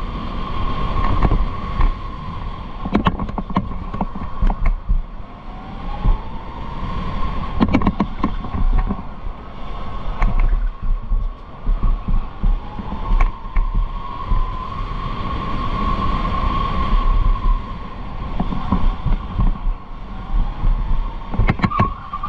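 Electric go-kart's motor whining on track, the whine rising in pitch several times as the kart accelerates and holding steady at speed, over a low rumble. Short clusters of sharp clicks come about three seconds in, near eight seconds, around thirteen seconds and just before the end.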